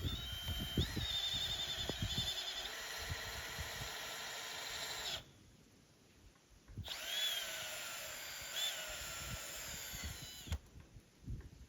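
A small electric motor whining steadily for about five seconds and stopping abruptly, then spinning up again with a short rise in pitch and running steadily for about four more seconds.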